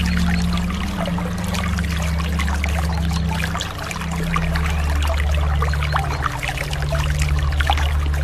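Sea water splashing and trickling in many small, quick splashes, over a low steady drone that shifts to a new pitch every second or two.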